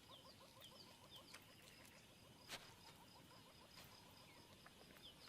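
Faint natural ambience of small animal calls: rapid, repeated short chirps, several a second, with a few soft clicks, the loudest about two and a half seconds in.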